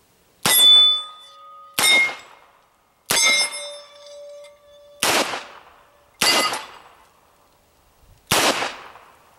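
Smith & Wesson Model 10 revolver firing six .38 Special rounds, about one every one to two seconds. Steel targets ring after some of the hits, one ring held for about two seconds.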